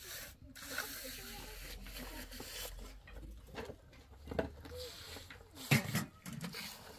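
Voices in the background, with two loud knocking or scraping hits about four and a half and six seconds in.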